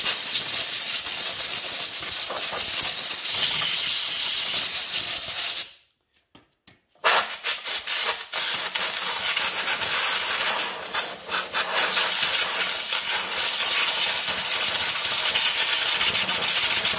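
Compressed-air blowgun blasting in two long, loud hissing bursts with a short break about six seconds in, blowing debris out from around a small engine's muffler.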